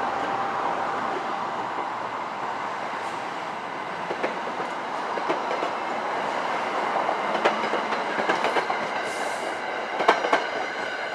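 NJ Transit passenger coaches rolling past at speed in a steady rush of wheel and rail noise. The wheels click sharply over the track now and then, loudest twice in the last few seconds.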